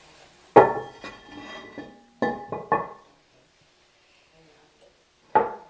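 Porcelain tank lid of a Kohler Wellworth Lite toilet knocking against the vitreous china tank, ringing after each hit. A loud clank about half a second in, three quick clinks around two to three seconds in, and one more near the end.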